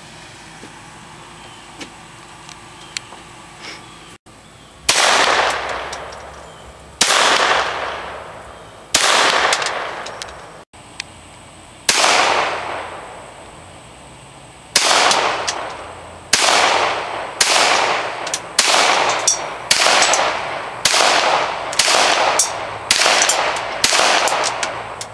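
Ruger .22 semi-automatic pistol being fired, about seventeen shots, each with a fading tail: the first few slowly, a couple of seconds apart, then a quicker string of about one shot every 0.7 s.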